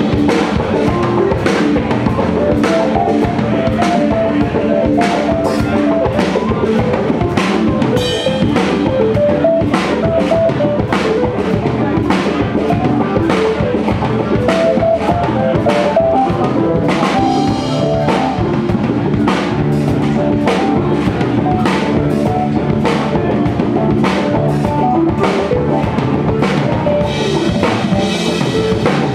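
Live band playing: a drum kit keeps a steady beat under bass, electric guitar and a keyboard playing a moving melody line.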